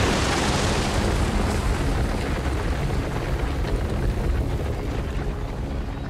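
A wildebeest herd stampeding in panic up a dry, dusty bank: a loud, dense rumble of many hooves on hard ground that slowly eases off.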